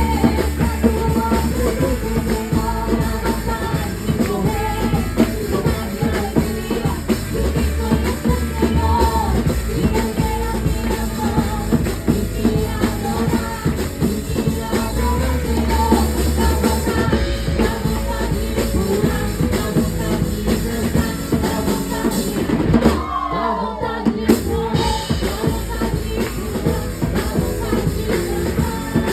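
Band music with a drum kit, a steady bass drum and singing. The bass and drums drop out for about a second near the three-quarter mark, then come back.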